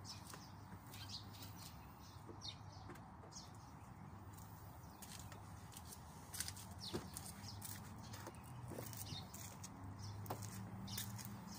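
Cloth rubbing on a car's hood as it is wiped down by hand, with short, sharp squeaks and clicks scattered through, a few louder ones a little past the middle, over a low steady hum.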